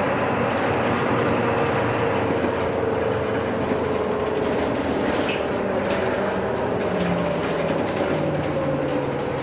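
Interior noise of a city bus driving along: a steady drivetrain whine that sags slightly in pitch and rises again near the end, over road noise, with light rattles from the cabin fittings.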